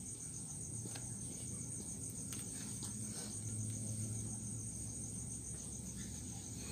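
Crickets chirping in a steady, rapidly pulsing high trill, with a faint low hum in the middle and a few soft clicks.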